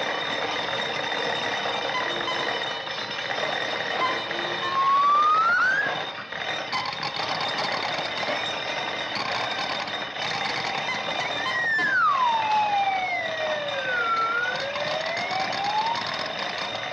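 Whistle-like sound effects gliding in pitch, one rising briefly about five seconds in and a longer one swooping down and back up near the end, over the steady hiss and whine of an old optical film soundtrack.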